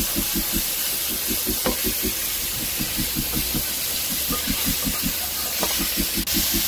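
Pork, tomatoes and onions sizzling in a hot pot as they are stir-fried with a spatula, a steady hiss. Background music with a regular low beat plays under it.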